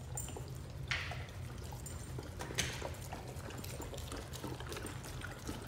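Dogs eating wet raw food from stainless steel bowls: wet, sloppy chewing and slurping with small clicks, and two louder smacks or knocks against the bowl about one and two and a half seconds in. A steady low hum runs underneath.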